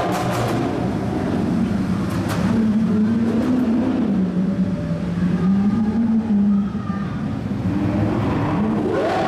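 A supercar engine running in a tunnel, with its note wavering up and down at low revs. There are a few sharp cracks in the first half second and again around two seconds in, and the revs climb steeply near the end.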